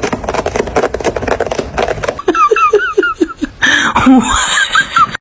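A cat's claws rasping rapidly on sofa fabric, then a run of short pitched calls that swoop up and down.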